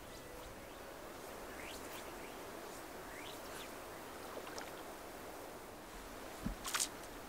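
Faint outdoor ambience: a soft steady hiss of moving air or water, with a few short rising bird chirps and a couple of sharp clicks near the end.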